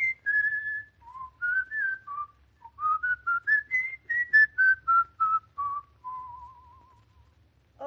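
A person whistling a short tune, one clear note at a time, ending on a long wavering note that fades out.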